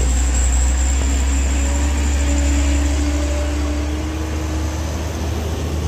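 Mitsubishi Canter light truck's diesel engine running under load as the truck drives past uphill, a steady low drone. A fainter engine tone above it drifts slowly and fades about five seconds in.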